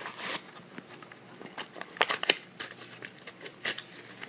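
Hot Wheels blister pack being torn open by hand: the plastic bubble and cardboard backing crinkle and crackle in a run of irregular sharp snaps.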